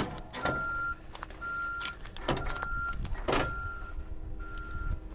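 Vehicle reversing alarm beeping about once a second, each beep a steady single tone about half a second long, mixed with a few loud crunching clatters.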